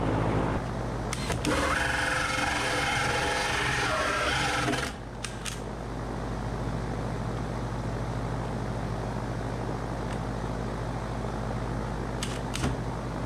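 Cordless drill running under load, boring holes through a wood-framed wall for pipes. About five seconds in, the rough, louder cutting gives way abruptly to a steadier running sound.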